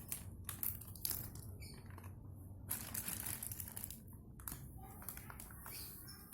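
Crinkling and rustling of something being handled, with scattered small clicks and knocks.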